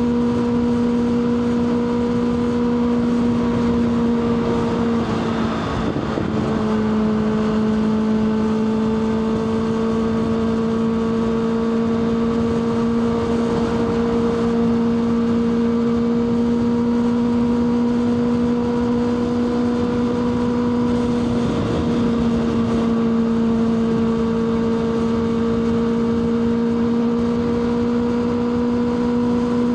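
Kawasaki ZX6R's inline-four engine running at a steady, high-revving cruise, its pitch easing down slightly about six seconds in and again a little after twenty seconds.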